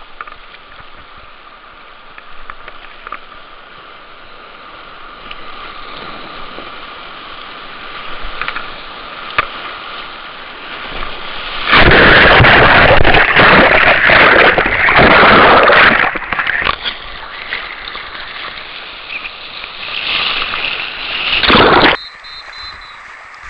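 Rushing whitewater of a big river rapid. About halfway it turns into loud churning and splashing for several seconds as water breaks over the microphone, with another surge near the end.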